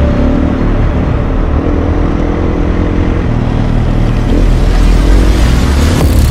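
KTM 350 Six Days dirt bike's single-cylinder four-stroke engine running under load, its pitch rising and falling with the throttle as it rides along singletrack.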